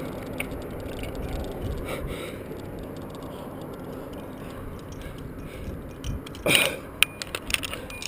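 Handling noise of a climber moving on rock, picked up by a body-mounted camera: a steady rustle and scraping, with a louder half-second rasp about six and a half seconds in and a few sharp clicks just after.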